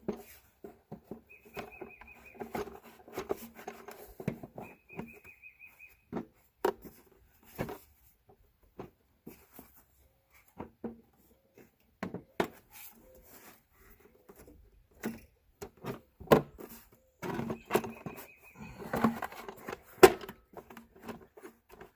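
Irregular clicks, knocks and rattles of a plastic ATV airbox being worked and pushed into place on a Honda Fourtrax 300, loudest near the end. Chickens cluck briefly a few times.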